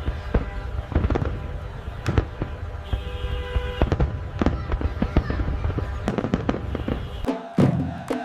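Fireworks going off in quick, irregular bangs and crackles over a low rumble, with music underneath. About seven seconds in, the rumble drops away and the bangs stand out more sharply.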